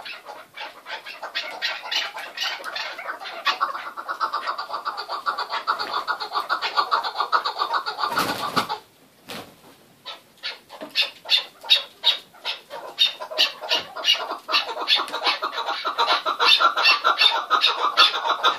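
Chukar partridges calling, a fast rhythmic run of short clucking 'chuck' notes several times a second. The calling breaks off briefly about halfway, then picks up again and is louder near the end.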